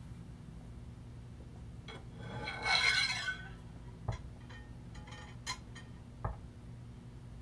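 Sony PS-X800 aluminium turntable platter being handled and fitted onto a test jig's post: a scraping rub lasting about a second, then two light knocks and a few small clicks.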